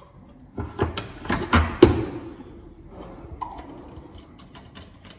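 A baby-formula tin and its scoop clatter as powder is scooped and the tin is closed: a run of knocks and scrapes over about a second and a half, the loudest near two seconds in, then a few light clicks.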